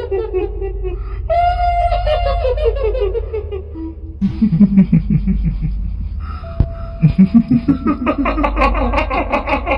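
Staged kuntilanak ghost laughter, the horror "hihihi" cackle. A high cackle falls in pitch twice, and then deeper, pulsed laughs start about four seconds in and again about seven seconds in. All of it runs over a steady low drone.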